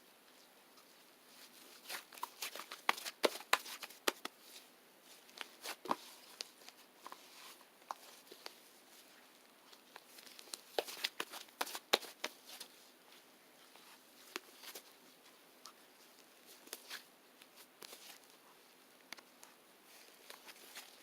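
Irregular small clicks, taps and rustles, coming in clusters with short pauses between them.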